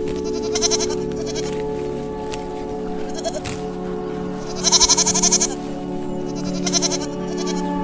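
Goat bleating in about six short wavering calls. The loudest and longest comes about halfway through and lasts about a second. Steady background music plays throughout.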